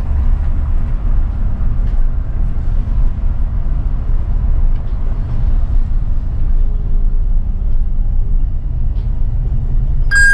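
City bus running along the road, heard from the driver's seat: a steady low engine and road rumble. Right at the end comes a brief electronic chirp.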